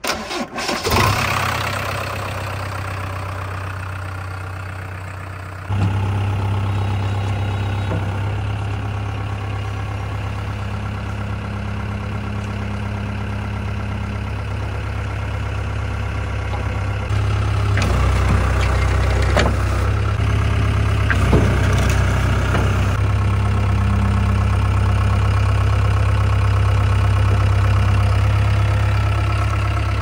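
A JCB 3DX backhoe loader's four-cylinder diesel engine starts up and then idles with a steady low hum. About 17 seconds in it runs louder and deeper, with a few sharp clicks.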